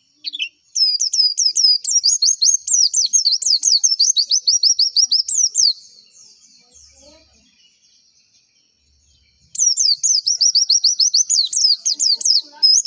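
Pleci (white-eye) singing: fast runs of high, sharp down-slurred chirps, several a second, in two long bouts with a pause of about four seconds between them.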